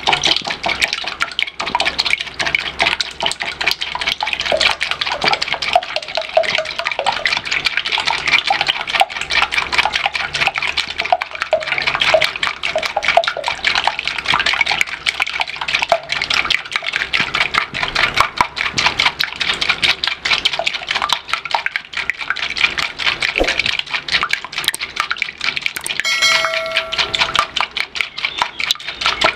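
Three raw eggs beaten with a wire whisk in a glass bowl: a rapid, steady clatter of the whisk against the glass. Near the end a short ringing chime sounds over it.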